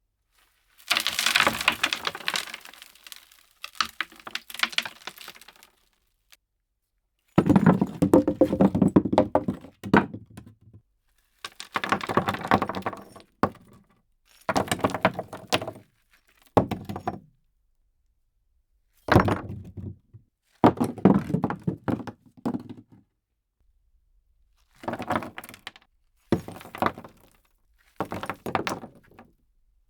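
Stones and pieces of wood falling and clattering down as debris, in about ten separate bursts of dense rattling impacts, each a second or two long and separated by brief silences.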